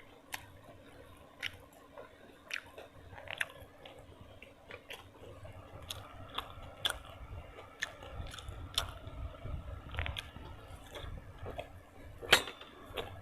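Close-up chewing and biting of food, with irregular wet clicks and smacks from the mouth; the sharpest click comes about twelve seconds in.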